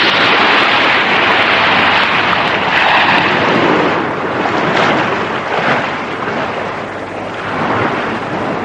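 Showa-era tokusatsu explosion sound effect: a long, dense rush of noise that fades slowly.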